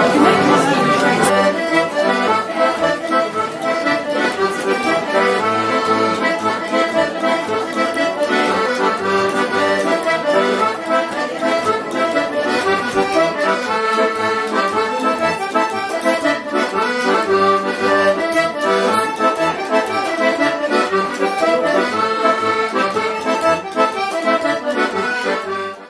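Traditional tune played on accordion, with a regular bass beat under the melody; it cuts off suddenly at the very end.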